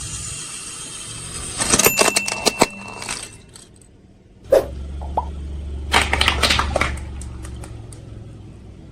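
Car tyre rolling over and crushing brittle objects: a burst of crackling and crunching about two seconds in, then after a short pause a second burst of cracks over the car's low steady rumble.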